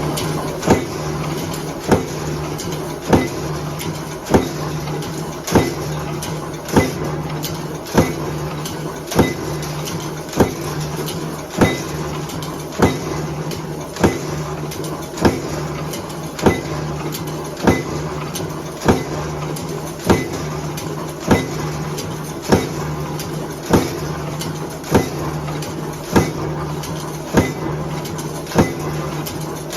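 Stamping press running, striking once about every 1.2 seconds in an even rhythm over a steady motor hum.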